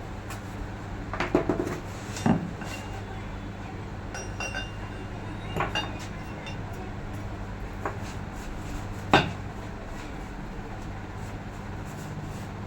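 Metal parts and tools clinking and knocking together as a forklift's hydraulic steering cylinder is reassembled by hand: a few separate knocks, the loudest about nine seconds in, over a steady low hum.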